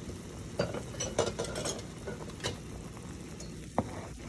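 A few sharp clinks and knocks of cookware: a pot lid and spoon knocking against a cooking pot. The sharpest clink comes near the end.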